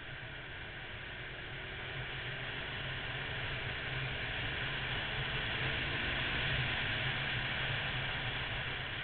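Wind rushing over the microphone of a camera mounted on a moving Honda VFR800 motorcycle, with the bike's V4 engine droning low underneath. It grows louder from about two seconds in, peaking near the end.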